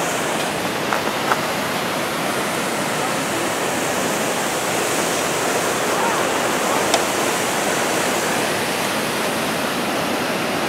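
Steady rush of a waterfall pouring down an ice-covered gorge, with one short sharp click about seven seconds in.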